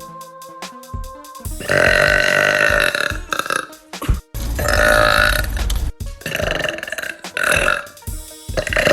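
A girl burping: several long, loud burps one after another, the first starting about a second and a half in, over background music.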